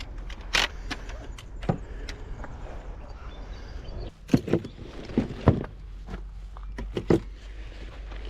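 A handful of sharp knocks and clunks, loudest in a cluster about halfway through, over a steady low rumble.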